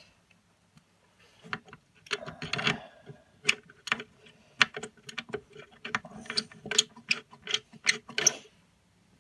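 Small steel machine screws with spring washers clicking and rattling as they are handled and fitted. The clicks come irregularly, starting about a second and a half in and stopping near the end.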